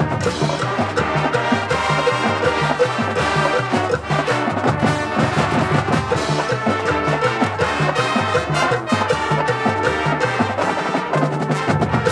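Marching band playing brass and drumline together, with a bass line that repeats about twice a second underneath.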